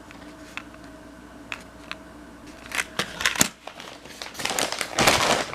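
Plastic lure packaging being handled: a few light clicks, then crinkling and rustling with sharp clicks that grow louder over the last couple of seconds.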